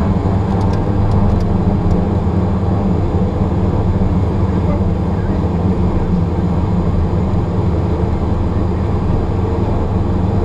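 Beechcraft King Air F90's twin Pratt & Whitney PT6A turboprop engines and propellers running steadily with a low hum, heard from inside the cockpit.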